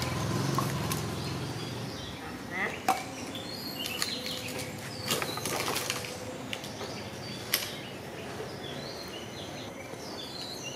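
Outdoor ambience: scattered short high chirps, a few sharp clicks or knocks about two seconds apart, and a low murmur in the first two seconds.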